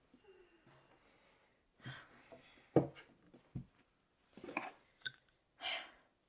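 Rummaging through a cluttered drawer: objects knocking and rattling, the loudest a sharp knock a little under three seconds in. A short hiss comes near the end.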